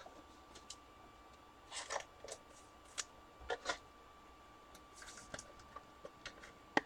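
Faint, scattered rustles and light clicks of trading cards and a plastic card holder being handled.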